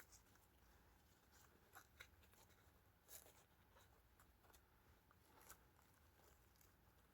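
Near silence with a few faint, short clicks and rustles, from small stones being placed around a potted petunia on the soil.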